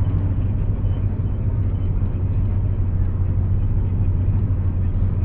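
Intercity bus engine running with a steady low drone and road noise while cruising, heard from inside the driver's cab.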